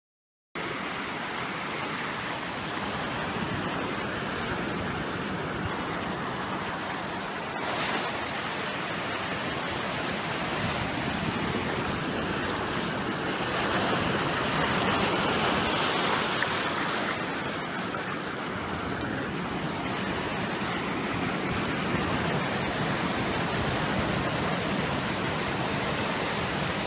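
Ocean surf: a steady rushing hiss of waves breaking and washing up the shore, swelling for a few seconds about halfway through.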